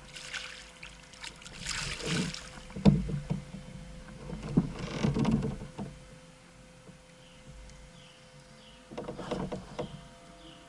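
Water splashing and sloshing beside a kayak as a hooked blue catfish thrashes at the surface, with knocks against the kayak's hull. It comes in three bursts, and the sharpest knock falls about three seconds in.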